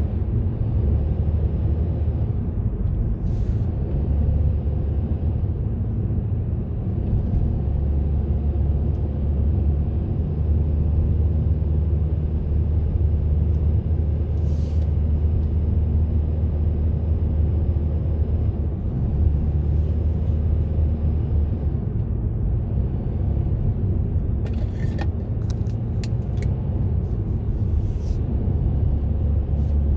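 A car driving along steadily, its engine and tyres making a continuous low rumble, with a few short sharp clicks about three-quarters of the way through.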